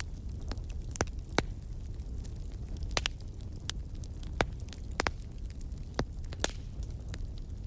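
A strongly burning bonfire: a low, steady rumble of flames with irregular sharp crackles and pops from the burning wood.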